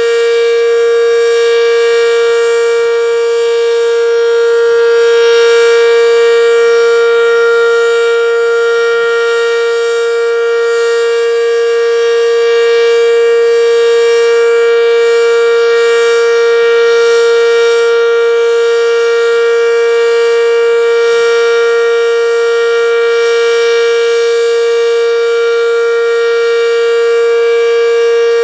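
Werden Electric B-115 single-tone omnidirectional warning siren sounding at full speed: one loud, steady, unwavering tone with a rich stack of overtones.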